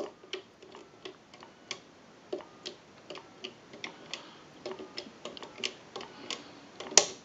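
Touch-tone keypad fitted into a Western Electric 317 wooden wall telephone, its buttons clicking as digits are pressed one after another, a few clicks a second, with a sharper click near the end.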